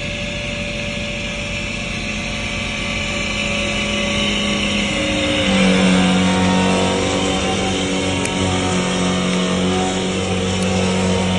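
Tractor and sprayer fill pump running steadily as liquid is pumped through a hose into the sprayer tank. About five and a half seconds in, the engine note steps up and gets louder, then holds.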